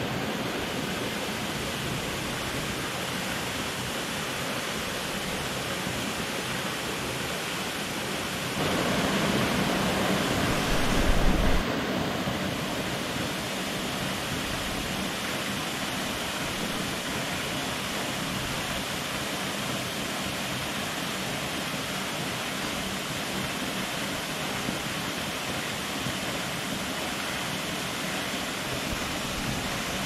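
Waterfall plunging into a rock pool: a steady rush of falling water. About nine seconds in it grows louder for a few seconds, with a brief low thump near eleven seconds.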